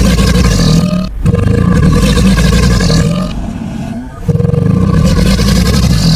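Alligator bellowing: a run of loud, low, rumbling bellows, each a couple of seconds long, with short breaks about a second in and about four seconds in.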